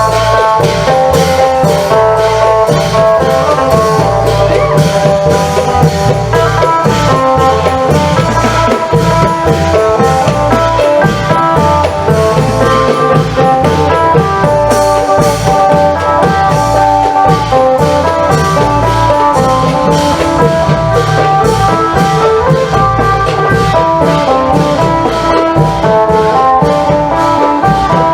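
Isan folk music: a phin (plucked lute) playing a continuous melody over a steady rhythm of klong yao long drums and percussion.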